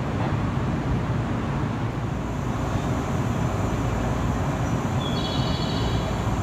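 Steady low rumble and hum of a JR Series 103 electric train standing at the platform with its onboard equipment running. A brief high-pitched tone sounds about five seconds in.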